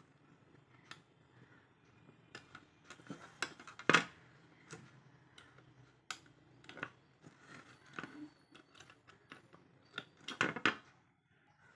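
Small screwdriver clicking and scraping on a tiny screw in a plastic brush-cleaning box, with scattered light taps of plastic on plastic. The loudest click comes about four seconds in, and a few more come close together near the end.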